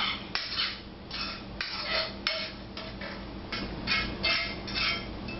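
Metal utensil scraping and tapping in a skillet as mushrooms and pan drippings are spooned out, in short repeated strokes about twice a second, some with a faint metallic ring.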